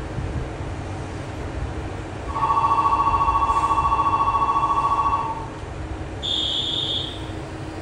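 An electronic ringing signal: a fast-trilling two-note ring lasting about three seconds, then a short, higher single beep about a second later.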